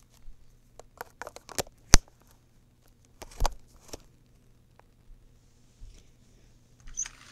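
Handling noise of a fallen camera being picked up and repositioned: scattered small clicks and knocks, with a sharp knock about two seconds in and another about a second and a half later.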